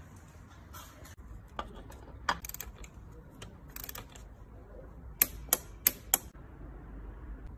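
Torque wrench clicking as it tightens a fitting on the engine: light scattered ticks, then four sharp loud clicks about a third of a second apart a little past the middle.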